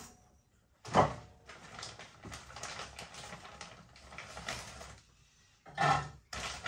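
A single knock, then a few seconds of crackly rustling and small clicks as plastic food packaging is handled.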